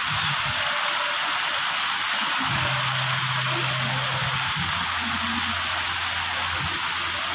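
Steady rushing hiss of water running down water slides and splashing into a pool.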